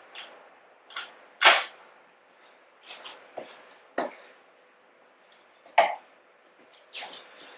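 A handful of irregular sharp knocks and clicks, the loudest about a second and a half in and again near six seconds, with quiet gaps between them. No motorcycle engine is running yet.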